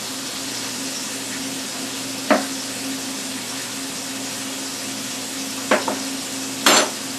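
Liver and onions frying in a pan with a steady sizzle, and a knife knocking on a cutting board four times, two close together, as a red pepper is sliced.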